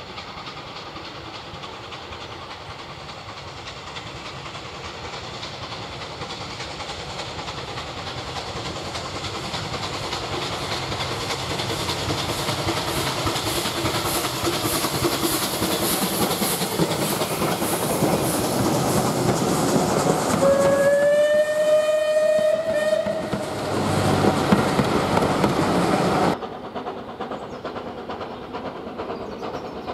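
Bulleid West Country-class light pacific steam locomotive approaching under steam, its exhaust beats growing steadily louder. A little over two-thirds of the way through it sounds its whistle once for about two and a half seconds, rising slightly in pitch then held, and the train rattles past before the sound cuts off abruptly to a quieter, distant train.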